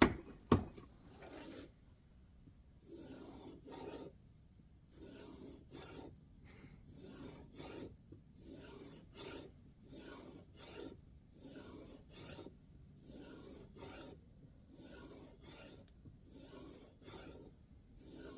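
Kizer Domin's N690 steel blade being pulled along a strop, one stroke after another at roughly one a second: the edge is being honed into a slight micro-convex. A sharp click or two comes just at the start.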